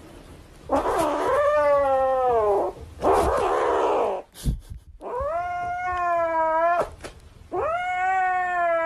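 Grey kitten yowling while holding a plush toy that a hand reaches for, guarding it: three long, drawn-out, wavering calls of about two seconds each, with a breathy hiss between the first two.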